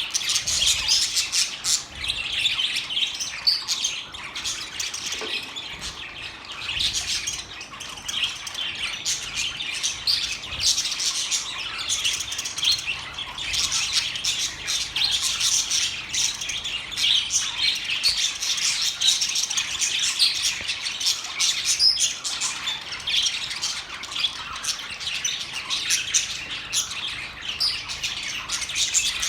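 Budgerigars chirping and warbling without a break: a dense, busy chatter of many quick, high chirps and squawks.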